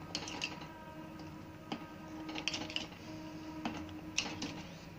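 Steel spoon scraping and clinking against the inside of a stainless steel pressure cooker pot while stirring thick milky kheer, in irregular taps and scrapes.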